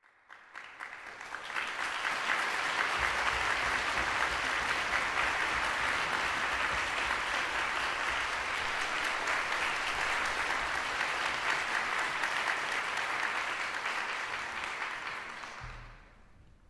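Audience applauding, swelling over the first couple of seconds, holding steady, then dying away just before the end.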